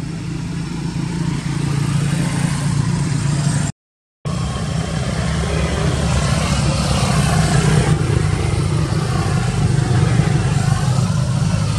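A motor engine running steadily with a low, even hum. The sound cuts out for about half a second about four seconds in, then carries on.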